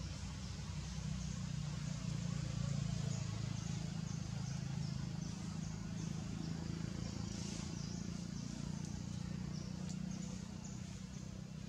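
Outdoor ambience: a steady low hum with a thin, rapidly repeating high chirping over it.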